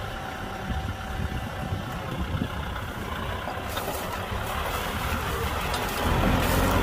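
Kubota M6040 SU tractor's diesel engine running steadily, getting a little louder about six seconds in.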